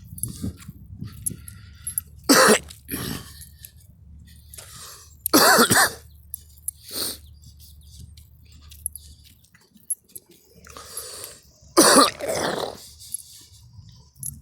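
A person coughing in separate fits: two coughs about two seconds in, a loud one around five seconds, a small one around seven, and a last loud cough near twelve seconds. The cougher blames the cough on allergies.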